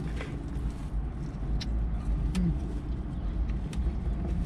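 Steady low rumble of a car idling, heard from inside the closed cabin, with a few small clicks of eating and a short low hum about halfway through.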